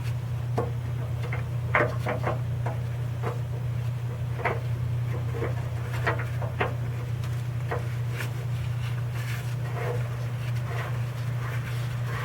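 Irregular light clicks and knocks of hand work on the dipstick tube adapter fitting, over a steady low hum.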